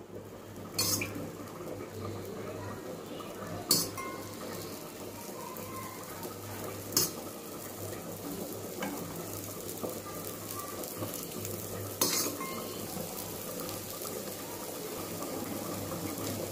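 A dosa frying in oil on a hot griddle, sizzling steadily, with a metal utensil knocking sharply against the pan four times.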